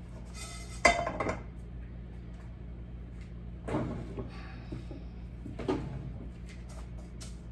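Kitchen clatter of a spatula and frying pan while whole spices are dry-roasted on a gas stove: a sharp knock about a second in, then lighter knocks and scrapes near the middle and later on. A steady low hum runs underneath.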